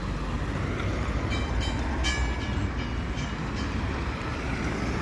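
Heavy road-construction machinery running with a steady low rumble. Several short, high-pitched metallic squeals come near the middle.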